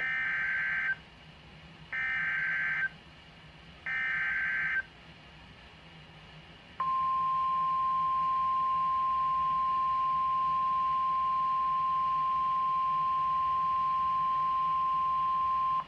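Emergency Alert System broadcast on NOAA Weather Radio. Three one-second bursts of SAME header data tones, a short pause, then the steady single-pitch warning alarm tone held for about nine seconds. The tone signals that a warning follows, here a severe thunderstorm warning.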